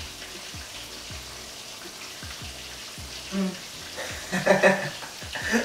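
Fish frying in hot coconut oil in a pot, a steady sizzle, with short bursts of a person's voice about three and a half and four and a half seconds in.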